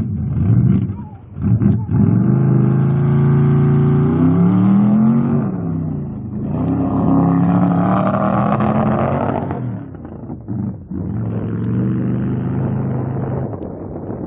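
Chevy mud truck's engine revving hard under load as it churns through a mud bog, the pitch climbing and falling in several surges, with a short lull about two-thirds of the way through before it runs on steadily.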